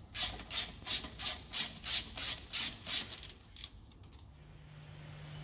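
Ratchet driving a T30 Torx bit, undoing the brake disc retaining screw on a VW Golf GTI Mk7 rear hub. It clicks evenly, about three times a second, and stops a little over halfway through. A faint low steady hum comes in near the end.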